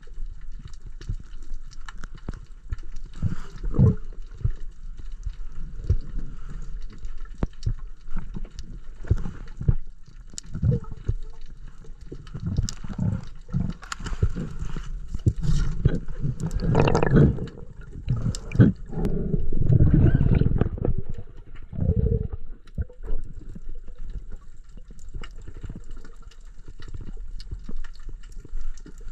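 Muffled underwater sound picked up by a submerged camera: water movement and gurgling with many irregular small clicks and knocks, swelling into louder gurgling surges about halfway through.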